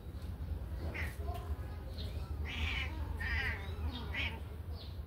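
Ginger kittens mewing: several short, high-pitched mews in quick succession.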